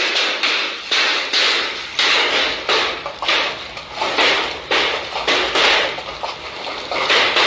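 Hailstones striking a hard surface in a storm: separate, irregular hard knocks, roughly one or two a second, each ringing briefly.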